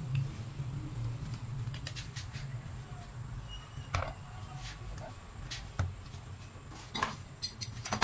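A few separate clicks and knocks as tools and a metal clamp are handled and set down on an MDF board, the loudest near the end, over a steady low hum.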